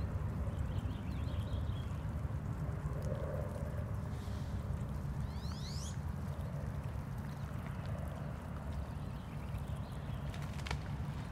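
A Canada goose grazing close by, its bill plucking at short grass, over a steady low rumble. A small bird chirps faintly and gives a quick rising call about halfway through, and a sharp click comes near the end.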